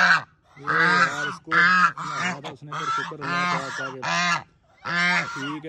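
Domestic geese honking: a rapid series of short, harsh honks with brief gaps and one longer pause near the end, as a goose stretches its neck low toward a reaching hand in a threat posture.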